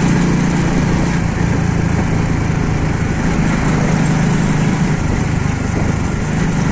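A vehicle engine running steadily at a constant pace, heard on board while riding, with road and wind noise over it.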